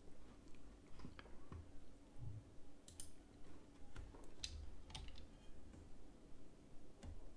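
Faint, irregular clicks and taps of a computer mouse and keyboard, about ten of them spread unevenly, over a faint steady hum.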